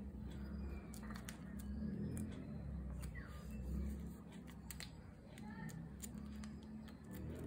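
Plastic photocard sleeves and cards being handled, giving a string of light clicks and rustles over a low steady hum. A few short falling bird chirps sound faintly now and then.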